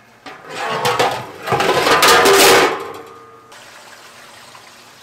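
A large aluminium steamer pot lid clattering and scraping on its pot, the metal ringing, for about two and a half seconds. Then water from a hose runs steadily into the steamer pot.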